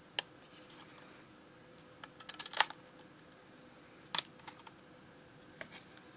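Hands handling a small thermal label printer and tearing the printed paper label off at its slot: a single click, then a short crackly rip, then a sharper double click and a few faint ticks.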